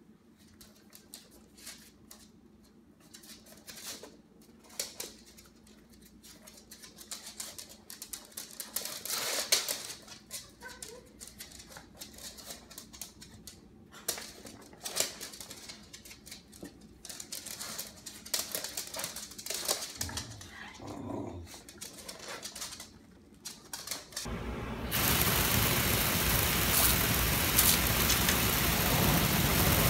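Dogs in a kitchen making a few short sounds among scattered light clicks and taps. About 24 seconds in, a garden hose starts spraying water with a steady loud hiss.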